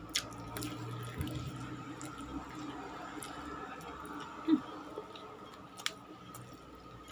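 Close chewing and wet mouth sounds of someone eating chicken, with scattered small clicks and smacks over a steady low hum. A short brief vocal sound comes about four and a half seconds in.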